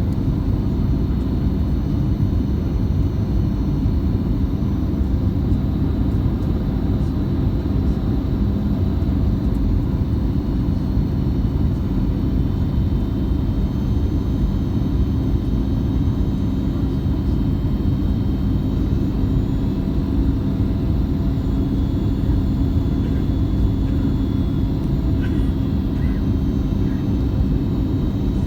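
Steady cabin noise inside a Boeing 737 MAX airliner: a constant low rumble of its CFM LEAP-1B turbofan engines and airflow, with a few faint steady tones over it.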